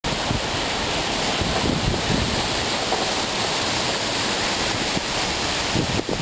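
Strong wind blowing hard against the microphone: a loud, steady rush with irregular low buffeting gusts.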